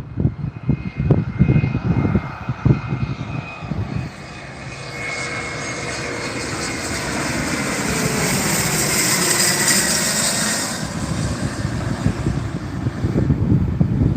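Jet aircraft passing low overhead: its engine noise swells from about five seconds in, with a high whine, peaks near ten seconds, then the whine drops away abruptly, leaving a fading rumble. Wind buffets the microphone in the first few seconds and again near the end.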